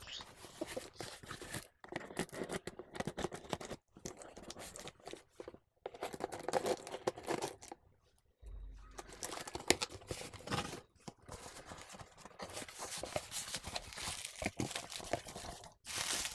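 Packing tape being slit with a small blade and torn off a cardboard shipping box, with cardboard scraping as the flaps are pulled open: irregular scratchy rips with short pauses between them.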